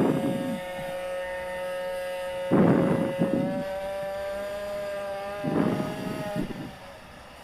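Small 40 cc water-cooled two-stroke racing minibike engine held at high revs, heard from the bike's onboard camera. It makes a steady, high-pitched whine that climbs a little in pitch past the middle, then drops away near the end. Three short bursts of rushing noise come at the start, about two and a half seconds in, and about five and a half seconds in.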